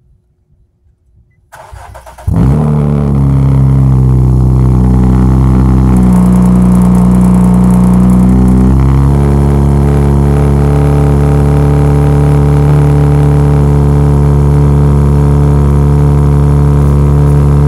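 Infiniti G37 coupe's 3.7-litre V6, breathing through a 3-inch single-exit exhaust with an aftermarket Y-pipe, on a cold start: the starter cranks for under a second, and the engine catches about two seconds in. It then runs at a loud, steady idle whose tone shifts once, about nine seconds in, before holding steady.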